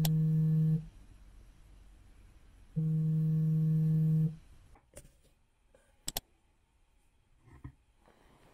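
Smartphone alarm vibrating against a bedside table: two steady low buzzes of about a second and a half each, two seconds apart. A few faint clicks follow near the middle.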